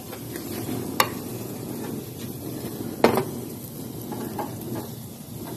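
Chicken pieces sizzling on a barbecue grill grate, with two sharp clicks, about a second in and again about three seconds in.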